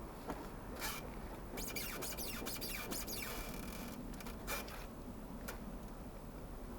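Wrenches being handled on a motorcycle's swingarm pivot bolt and nut: a few separate sharp clicks, with a stretch of rapid fine clicking from about one and a half to three seconds in.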